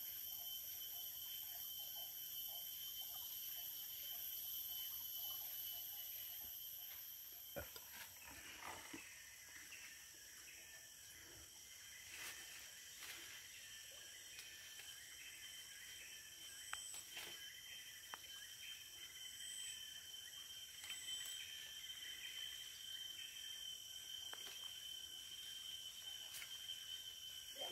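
Rainforest insect chorus: several steady, high-pitched drones at once, the highest stopping about eight seconds in. Now and then there are short snaps and rustles of undergrowth being pushed through.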